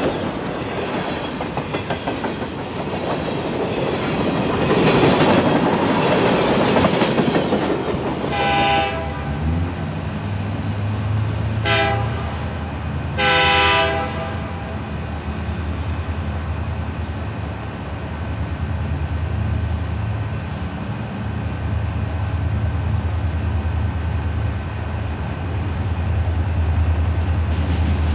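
Freight cars rolling past close by with steady wheel-and-rail noise. Then a distant diesel freight locomotive sounds its air horn: a long blast, a short one and another long one. Its engine rumble grows steadily as the train approaches.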